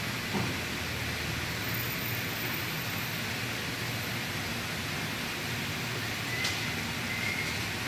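Steady hissing workshop background noise, with a sharp click about six and a half seconds in as the two-post car lift's control is worked.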